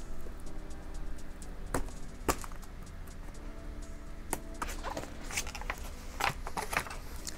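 Packaging of a boxed plush doll being handled and opened: scattered sharp clicks and crinkles of cardboard and plastic, over soft background music.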